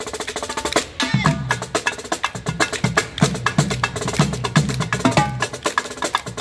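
Marching drumline of snare drums and a set of four tenor drums (quads) playing a fast cadence of sharp, closely spaced strikes.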